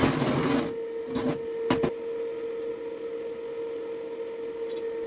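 Three short rasping scrapes in the first two seconds, then only a steady hum.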